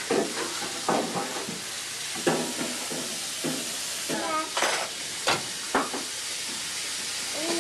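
Steady hiss with scattered light knocks and clinks of tableware, about one every second, and a brief snatch of faint voice about four seconds in.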